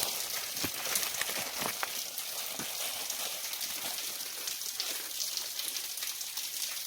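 Steady spattering hiss of falling water, with many small crackling clicks scattered through it.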